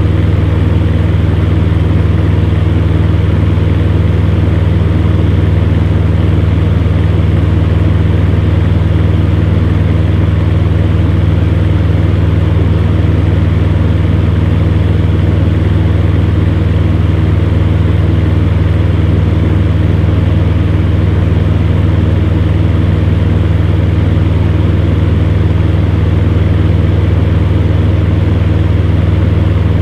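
Electric fan running steadily: a constant low motor hum with a few steady tones over an even rush of moving air, unchanging throughout.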